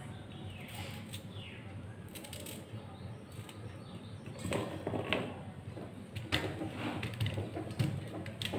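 Knife slicing raw green mango by hand over a steel bowl, quiet cutting and handling with a few soft knocks about halfway through as slices are dropped into the bowl.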